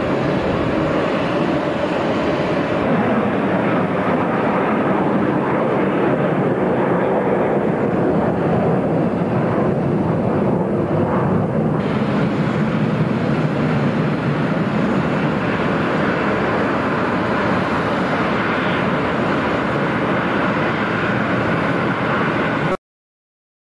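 Boeing 747 jet engines at taxi power: a steady, loud rushing noise with no break, cutting off suddenly near the end.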